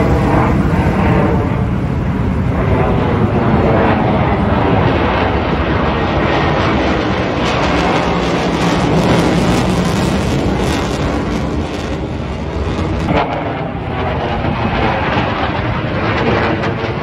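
Jet noise from a Sukhoi twin-engine fighter during an aerobatic display: a loud, steady rumble, with crackling through the middle of it.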